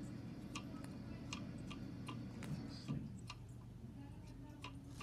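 Scattered light clicks, about one or two a second at irregular spacing, over a low steady hum.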